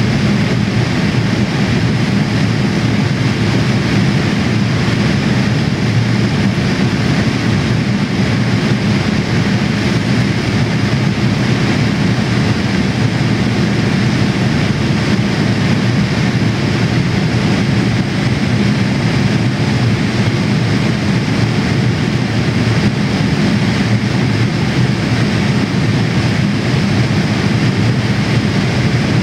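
Steady in-flight cabin noise of a Boeing 787-8 airliner: the low hum of its jet engines and the rush of air over the fuselage, unchanging throughout.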